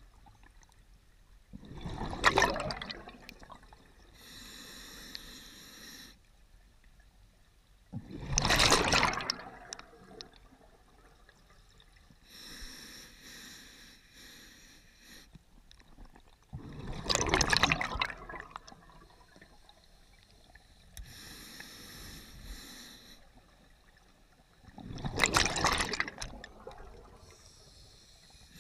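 Scuba diver breathing underwater on an open-circuit regulator: four slow breaths about eight seconds apart. Each is a quieter hissing inhale through the regulator followed by a loud rush of exhaled bubbles.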